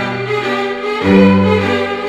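Background music: bowed strings playing sustained low notes that change about once a second.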